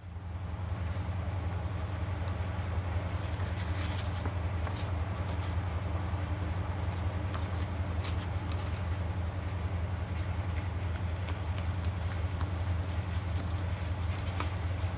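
Steady low machine hum from shop equipment, with faint rustling and crinkling of a sandpaper sheet being handled and folded.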